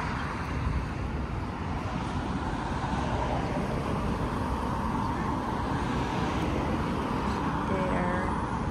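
Steady road traffic noise from cars on a city street, an even rumbling hiss with no single event standing out. A brief faint voice comes in near the end.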